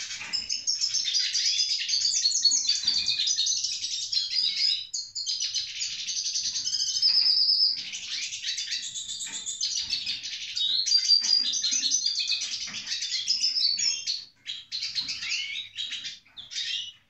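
Male hooded siskin singing a long, fast twittering song, which breaks into shorter phrases with brief pauses near the end.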